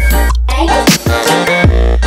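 Electronic music with a heavy, sustained bass line and a strong, punchy beat.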